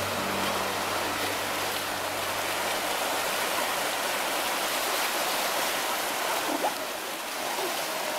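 Fast whitewater mountain river rushing over rocks, a steady, even rush of water.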